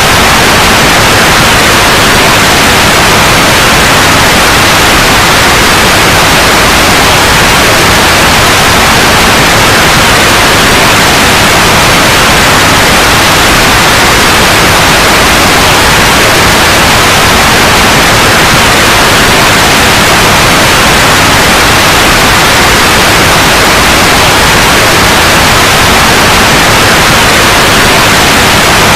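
Steady, loud white noise: an even hiss with no changes.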